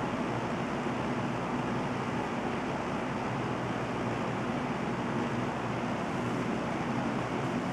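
JCPenney (Lakewood) Model 9794 20-inch box fan running steadily: an even whoosh of air from the blades with a faint low motor hum.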